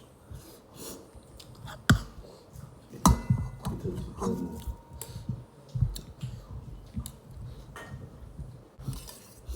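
Close-up chewing and biting while eating chicken, with irregular wet smacks. There is a sharp knock about two seconds in and another about three seconds in.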